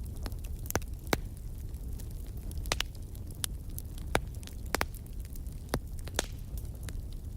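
Fire crackling: irregular sharp pops and snaps, about two a second, over a steady low rumble of burning.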